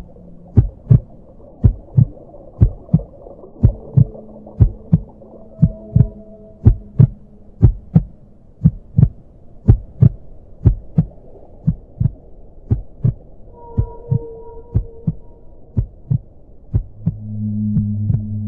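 Ambient soundtrack of heartbeat-like double thumps, about one beat a second, over a low droning hum with a few long held tones. The hum swells louder near the end.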